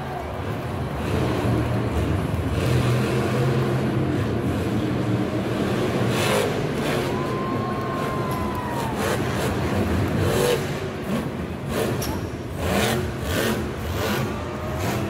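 Monster truck's supercharged V8 engine revving hard, rising and falling as the truck drives and jumps.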